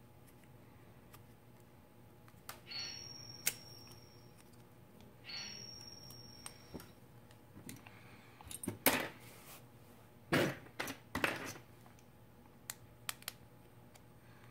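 Light clicks, taps and scrapes of small plastic and metal phone parts and a precision screwdriver being handled while an LG G5's battery module is taken apart, with a few louder clatters about nine to eleven seconds in.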